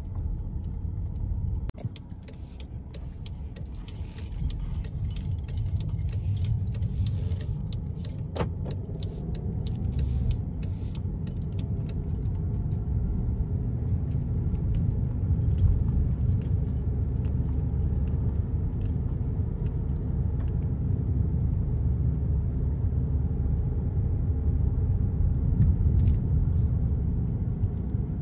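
Car driving, heard from inside the cabin: a steady low road rumble, with light high-pitched jangling and clicking over roughly the first ten seconds while on a leaf-covered gravel lane. After that the rumble grows steadier and a little louder on the paved road.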